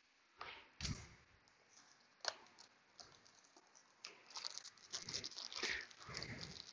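Faint rustling and crinkling of packaging as new brake pads are unpacked, with a few sharp clicks early on and a denser crackling rustle in the second half.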